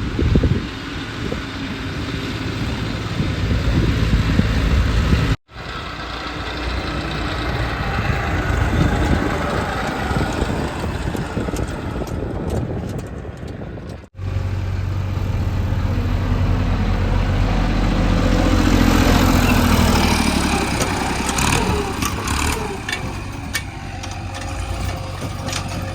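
Diesel engine of a JCB 3DX backhoe loader running while it works, in three stretches joined by abrupt cuts about five and fourteen seconds in. In the last stretch the engine revs up and settles back, with a few sharp knocks after it.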